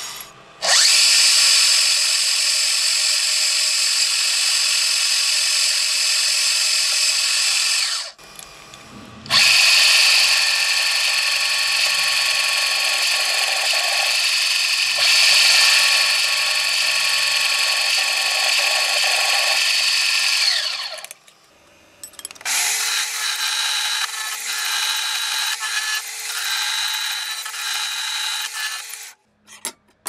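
Drill press drilling into a steel flat bar, first with a small bit and then with a larger twist bit: two long runs of steady high-pitched whine and hiss with a short break between. After a brief pause a metal-cutting band saw runs for several seconds with a steady hum.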